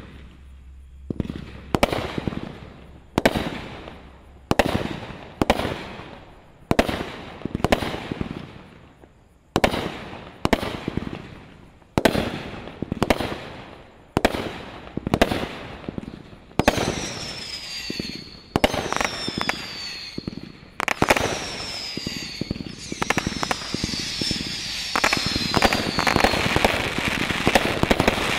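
A Neutron Bomb 36-shot, 500-gram firework cake firing shot after shot, about one a second, each a sharp launch thump with a decaying tail. About two-thirds through, falling whistling tones join the shots, and near the end it thickens into a dense crackle.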